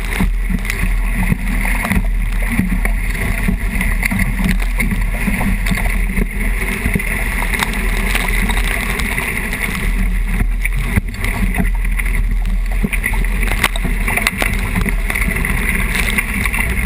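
Steady rush of wind buffeting the microphone and water spraying and rushing past a 29erXX skiff's hull as it sails fast in about 30 knots of wind, with a few sharp knocks from the boat.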